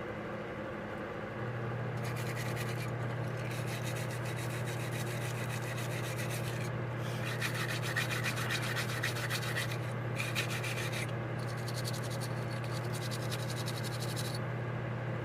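Old carburetor floats being scrubbed clean by hand, in three long stretches of fast back-and-forth rubbing, over a steady low hum.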